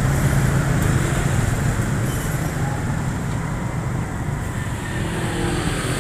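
Steady road traffic noise: a low rumble of passing vehicles.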